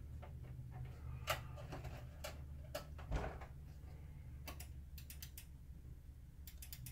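Small sharp plastic clicks and taps, irregular and scattered, as a small replacement lamp-cover safety switch and its wires are worked into the open plastic projector housing by hand. There is a duller knock about three seconds in, all over a low steady hum.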